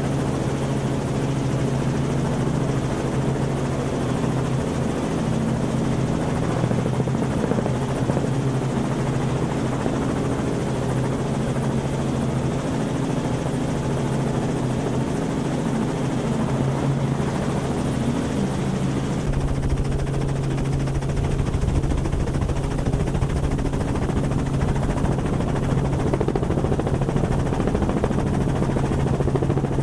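Helicopter in flight, its engine and rotor running with a steady drone and a constant low hum. About 19 seconds in, the deepest rumble grows stronger.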